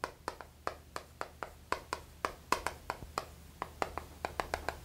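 Stick of chalk writing on a chalkboard: a quick, uneven run of sharp taps, several a second, as the strokes of the characters land.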